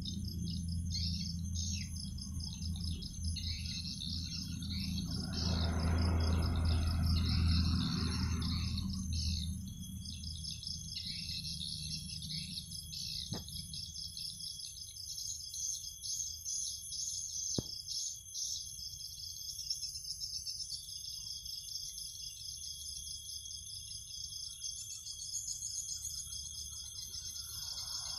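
Steady, rapid high chirping of insects and birds, with a low hum underneath; a brief rushing noise swells a few seconds in, and two sharp clicks come later.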